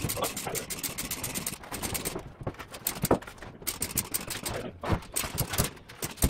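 Quick runs of clicking with a few louder knocks, from hoisting gear hung off a ceiling beam as a long wooden stair stringer is raised against the beam.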